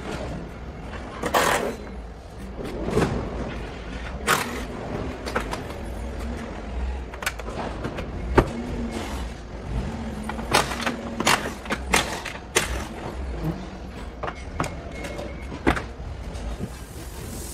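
Scattered clunks, knocks and rattles from a Toyota Vitz hatchback's doors and interior being opened and handled, over a steady low hum.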